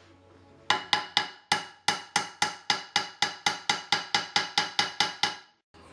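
A hammer taps rapidly and steadily on the heat riser valve shaft of a cast-iron exhaust manifold, at about five light, ringing metallic strikes a second. The tapping starts under a second in and stops shortly before the end.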